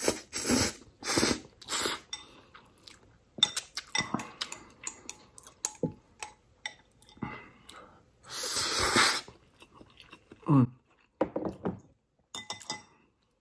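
A person slurping instant noodles off chopsticks in four quick pulls, then chewing with chopsticks clicking against a glass bowl, then one longer slurp. Two brief hums with falling pitch come near the end.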